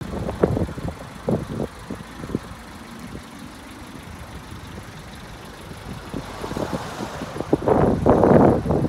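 Wind buffeting a handheld phone microphone outdoors: irregular low thumps and rumble, with a louder gust near the end.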